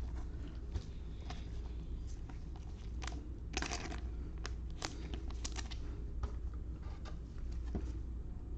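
Baseball trading cards being handled and flipped through, with scattered soft clicks and a short crinkle of packaging about three and a half seconds in, over a steady low hum.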